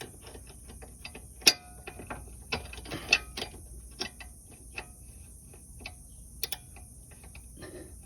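Irregular metallic clicks and clinks of a wrench and an Allen key working on a car's stabilizer link as its nut is threaded onto the ball stud, with two sharper clacks about one and a half and three seconds in.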